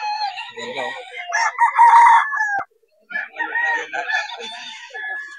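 Gamefowl roosters crowing. One long crow starts about a second in and breaks off abruptly. After a brief silence, more crowing and clucking follow.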